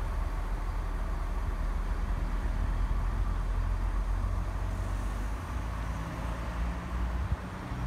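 Diesel regional train running, heard from aboard: a steady low rumble with running noise. About five and a half seconds in, the deepest rumble eases and a steadier engine hum comes through.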